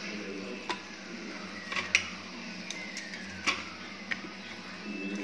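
Wooden spatula knocking against the sides of a metal pressure cooker while stirring raw chicken pieces in masala: about five sharp, separate knocks, two of them close together about two seconds in.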